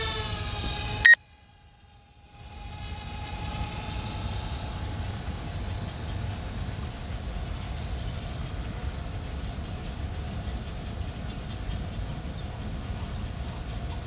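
DJI Mavic Air quadcopter's propellers whining, the pitch rising as the motors speed up. The sound cuts off abruptly about a second in, then fades back as a steady, quieter hum.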